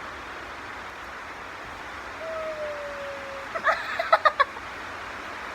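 A dog, likely a puppy, whining: one long falling whine, then a quick run of about five short high yelps, over a steady hiss.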